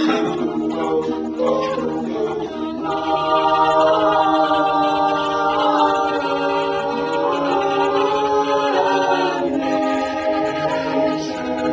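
A cappella vocal group singing in close harmony, voices only with no instruments, holding sustained chords that shift about two-thirds of the way through.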